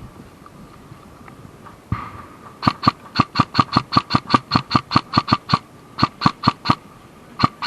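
Airsoft gun firing in rapid runs of sharp shots, about six a second, with two short breaks in the firing.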